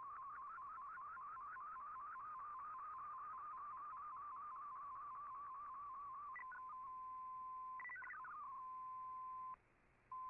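Shortwave MFSK digital-mode signal from an Icom IC-R8600 receiver, carrying a picture transmission: a single tone around 1 kHz that warbles rapidly as the image is sent. About six seconds in it settles into a steady tone, broken by a few quick steps in pitch, and it cuts out briefly near the end.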